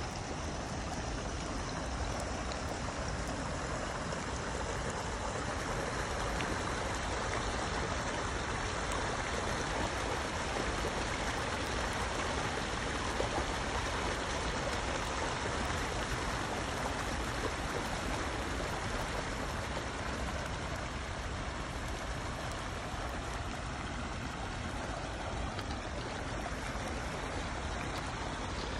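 Rainwater runoff rushing and splashing in a small swollen stream over dead leaves and reeds during a heavy downpour, a steady noise that grows louder in the middle and eases again.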